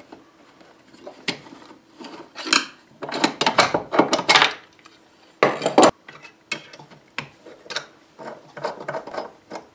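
Screwdriver and small metal parts of a bench-top circular-saw-blade sharpener clinking and scraping as its clamp knob assembly and fittings are unscrewed and lifted off: irregular clicks and short scrapes, the loudest about halfway through.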